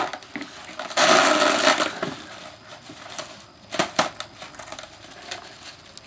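Plastic food containers and plastic wrap being handled: a loud crinkling rustle about a second in, then a couple of sharp knocks near four seconds.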